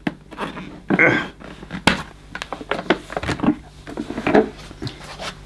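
Hard plastic clips on a Numatic Henry Hound vacuum's motor head being unlatched and the head lifted off its bin: a series of plastic clicks and clacks with handling noise, one clack louder about two seconds in.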